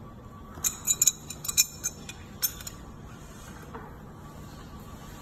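Steel jaws and screw of a two-jaw bearing puller clinking against the bearing and shaft as the puller is fitted into place: a quick run of sharp, ringing metal clinks starting about a second in and lasting about two seconds.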